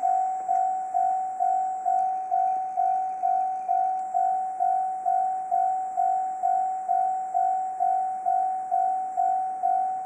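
Japanese railway level-crossing warning bell ringing, one clear ding repeated a little over twice a second, each stroke dying away before the next.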